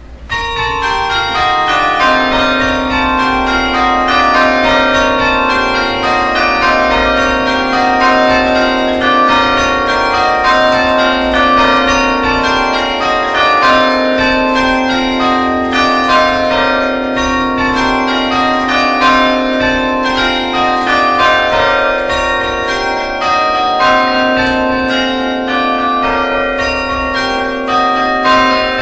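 Several church bells ringing together in a full peal, strikes following one another quickly so that the tones overlap. It starts abruptly at the beginning.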